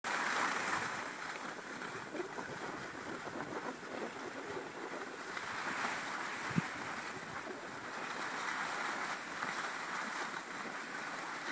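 Steady rushing hiss of skis sliding over snow and air moving past a phone microphone while skiing, swelling and easing slowly. A single sharp click comes about six and a half seconds in.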